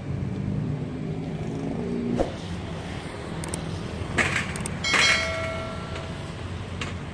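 Steady road-traffic rumble. About four seconds in come a few sharp clicks and then a bright ringing chime, the loudest sound, which fades over about a second: the click-and-bell sound effect of a subscribe-button animation.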